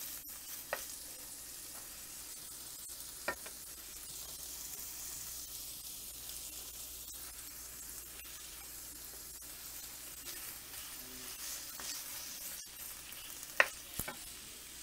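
Finely ground beef sizzling in olive oil in a nonstick frying pan as it browns, stirred with a wooden spoon. The spoon knocks against the pan a few times, the loudest two close together near the end.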